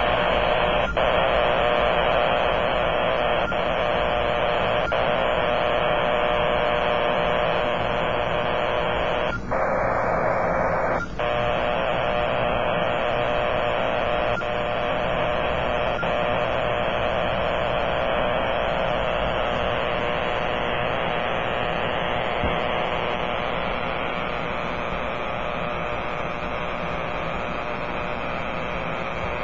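Powerline interference heard through a Kenwood TS-480 transceiver in AM mode: a steady, harsh static that keeps on as the radio is tuned across the 10 m and 6 m bands. The noise thins briefly about ten seconds in. This is RFI from the utility's power lines.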